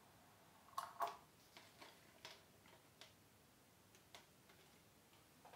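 Small clicks and light knocks of a plastic handheld megaphone being handled and set down. There are two sharper clicks about a second in, then a few softer, irregularly spaced ticks.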